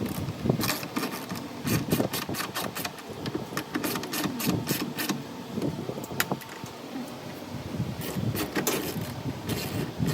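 Irregular clicking and clattering of hand tools and parts being handled while a washing machine is taken apart.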